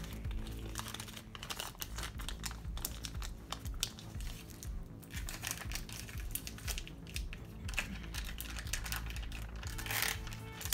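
Plastic wrap and paper crinkling in irregular crackles as they are handled and peeled back from a sheet of guava paste, over steady background music.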